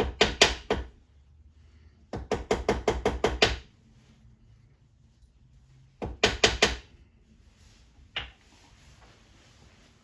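Quick runs of light hammer taps from a small locksmith's hammer reforming a lock cylinder's bent cap strip. There are about five taps at the start, then a run of about eight at roughly five a second a couple of seconds in, four more about six seconds in, and a single tap near the end.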